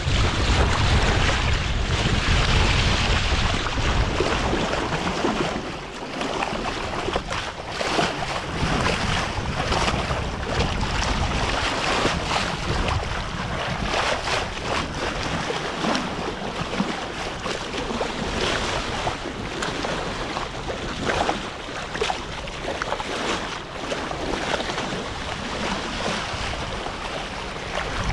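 A sailboat's bow wave rushing and splashing along the hull as it sails through choppy water, with wind rumbling on the microphone, heaviest in the first five seconds or so.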